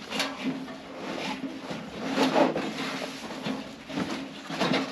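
Fabric grill travel bag rustling and scraping as it is worked around a stainless steel portable gas grill, with the loudest handling a little over two seconds in. A steady low hum runs underneath for most of it.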